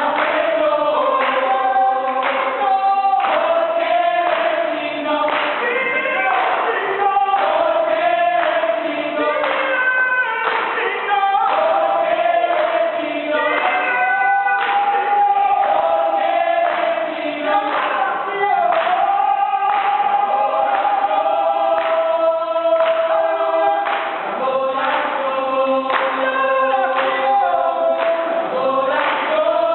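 Church worship group singing together, several voices carrying the melody, with a steady beat running through the song.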